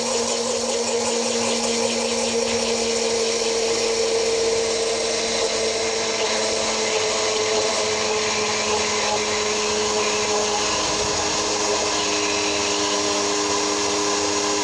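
Electric blender motor running steadily, whirring through eggs, vinegar and a thin stream of oil in its glass jar. The hum drops slightly in pitch partway through as the mayonnaise thickens and loads the motor.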